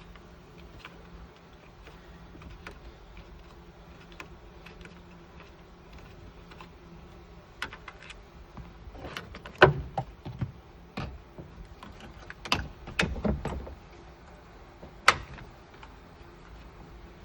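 A run of irregular sharp clicks and knocks, the loudest about a third of the way in and again near the end, over a faint low hum with light ticking.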